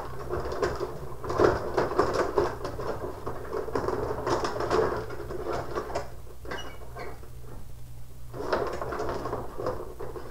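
Rod hockey game in play: the metal rods slide and twist in the table, and the plastic players clack against the puck and each other in quick runs of rattling knocks. The rattling eases off for a couple of seconds past the middle, then picks up again near the end.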